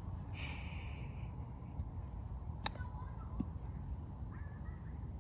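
A golf club striking the ball once on a short chip shot, a single sharp click a little past halfway, over a steady low rumble of wind on the microphone. A short hiss comes about half a second in.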